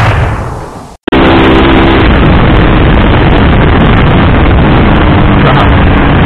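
Motorcycle riding at speed: loud wind noise buffeting the microphone, with the engine running underneath. The sound fades and cuts out for a moment about a second in, then comes back at full loudness.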